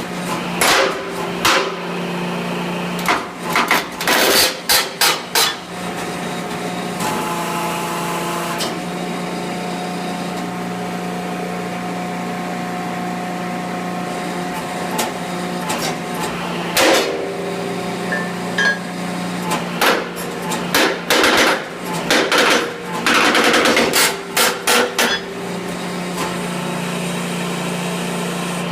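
Hydraulic track press running with a steady hum while a D7R crawler's track pins and bushings are being turned, broken by clusters of sharp metal-on-metal strikes. The densest run of strikes comes in the last third, and a higher steady whine joins the hum for several seconds in the first half.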